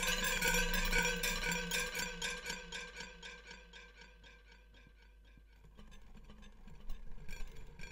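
Amplified steel rods of a homemade gamelimba rattling and ringing under a metal chain laid across them, sent through a digital delay so the metallic jangle repeats in rapid, even echoes that fade away over the first few seconds. Near the end a fainter scraping rattle rises as a wad of metal tinsel is worked over the rods.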